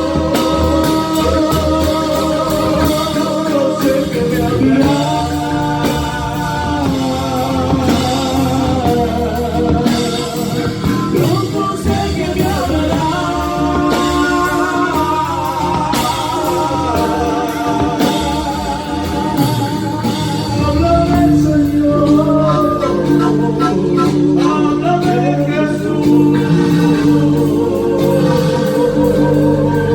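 Live music from a folk group performing a slow song: a lead melody line with vibrato over steady accompaniment, filling out in the low end about two-thirds of the way in.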